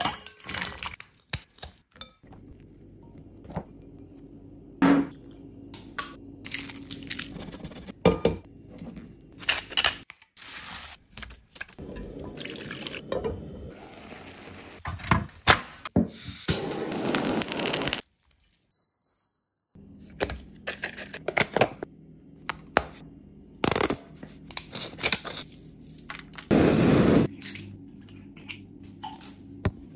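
A string of separate kitchen sounds with no speech: water sloshing and dripping as chicken feet are washed by hand in a glass bowl, clinks of glass and dishes, and short noisy bursts of cooking. Near the end, a glass soju bottle's cap is twisted open.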